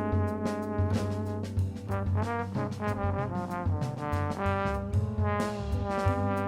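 Instrumental music: a brass-like lead melody moving note to note over a bass line and drums.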